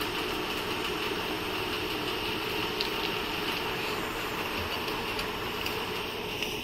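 Steady mechanical background hum and hiss that holds an even level throughout, with no distinct events.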